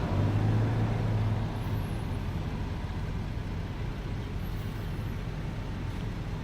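Road vehicle driving: a steady low engine hum with road noise, the hum strongest in the first second and a half.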